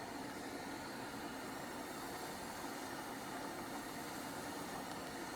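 Steady background hum and hiss, like a small motor or ventilation fan running, with no distinct events.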